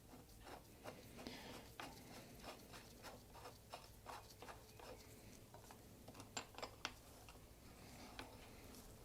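Faint, irregular small clicks and taps of metal parts being handled as a bicycle pedal is threaded back into its crank arm and tightened with a spanner, with a sharper cluster of clicks about six to seven seconds in.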